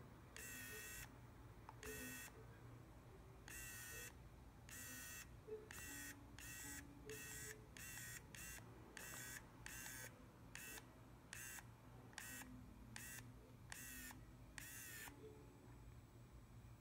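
Faint whine of a da Vinci 3D pen's filament-feed motor running in about seventeen short bursts with brief gaps, as the extrude button is pressed and released. The stop-start feeding lets the extruded plastic cool so the strand can build upward.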